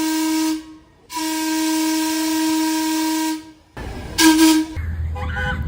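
MTA train air horn sounding two long blasts of about two seconds each: a single note with a strong airy hiss. A shorter blast follows near the end, then a low engine rumble.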